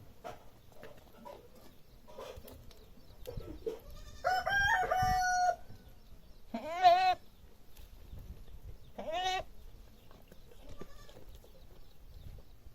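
Goats bleating: a long call that moves in steps of pitch a little before the middle, then a loud quavering bleat and, two seconds later, a shorter rising bleat.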